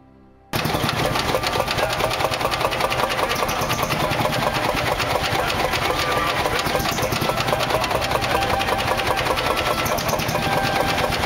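Société Française Vierzon tractor's single-cylinder hot-bulb engine running with a fast, even clatter, cutting in abruptly about half a second in.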